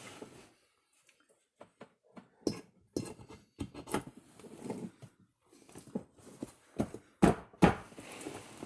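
Irregular knocks and clinks of metal parts as a cold crankshaft is worked into the bearing of a heated chainsaw crankcase half. The two loudest knocks come close together about seven seconds in.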